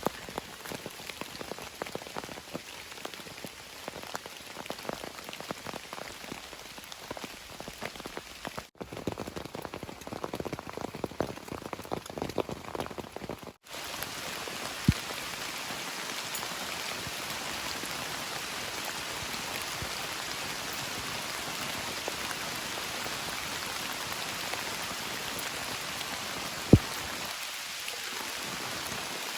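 Rain falling, with many separate heavy drops striking close by for the first half. After an abrupt break about 13 seconds in, it becomes a denser, steady hiss of rain with an occasional single sharp drip.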